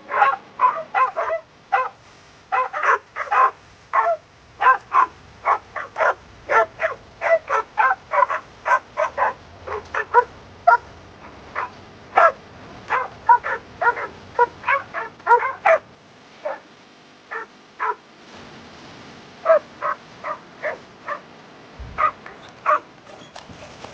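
Dog barking and yipping in a rapid run of short, high barks, several a second, thinning to scattered barks after about sixteen seconds.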